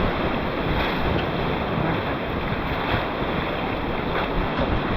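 Whitewater river rapids rushing steadily around a raft, a dense continuous noise with wind buffeting the microphone.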